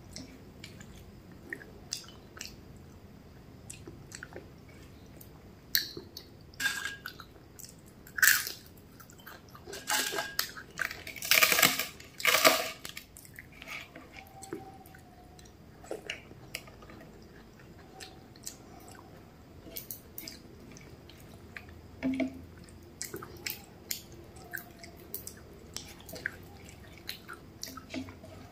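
Fingers mixing rice and curry on a plate, close to the mic: soft wet squishing, small clicks and chewing. A cluster of louder crackly bursts comes about halfway through.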